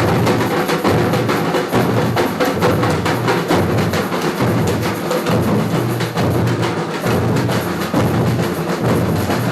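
Music with a strong drum and percussion beat: repeating low bass notes under sharp, clicky wood-block-like hits.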